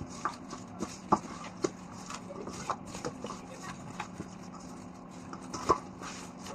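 Scattered light knocks and clicks at irregular intervals over a steady low hum, the sharpest about a second in and near the end.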